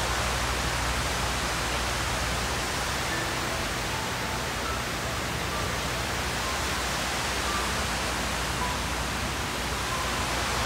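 Steady rushing of water pouring down the granite walls of the 9/11 Memorial reflecting pool, an even roar of falling water with no breaks.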